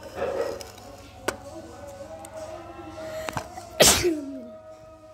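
Metal spoon scraping and clicking against a ceramic bowl, then one loud sneeze about four seconds in, the loudest sound, trailing off in a falling voiced tone. Faint music plays underneath.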